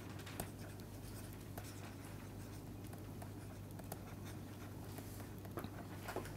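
Faint scratching and light taps of a stylus writing on a pen tablet, over a low steady hum.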